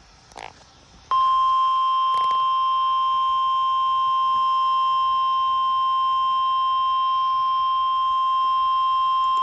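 Weather-radio warning alarm tone: one long, steady, loud beep that starts abruptly about a second in, sounding the alert for a severe thunderstorm warning.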